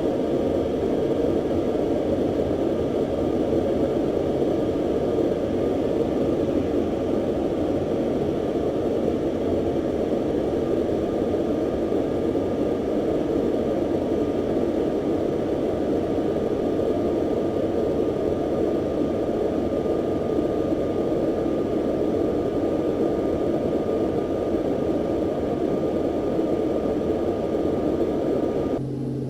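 Aircraft engine running steadily, a dense even rush with a faint high whine, cutting off suddenly near the end.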